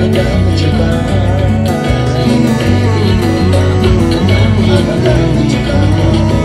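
A man singing into a microphone over amplified backing music with a steady bass line, his voice wavering through held notes.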